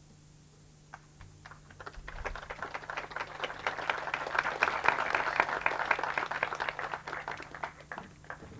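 Audience applauding. Scattered claps start about a second in, build to full applause in the middle and die away near the end.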